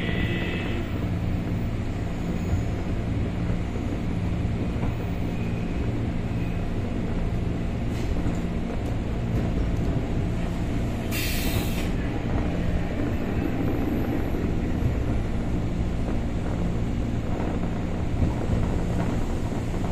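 Running noise inside a JR 203 series electric multiple unit motor car: a steady rumble of wheels on rail with a low hum from the running gear. A brief hiss comes about eleven seconds in.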